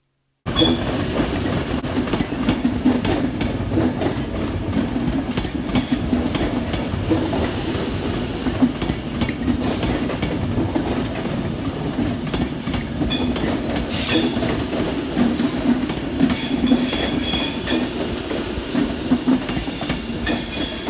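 Avanti West Coast Pendolino, an electric multiple unit, running past close by. Its wheels rumble with a steady run of irregular clacks over the rail joints, starting suddenly about half a second in.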